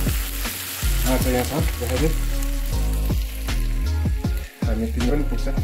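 Sliced onions and masala sizzling as they fry in an aluminium wok, stirred and scraped with a metal spoon. The sizzle is strongest in the first half and thins out after about three seconds.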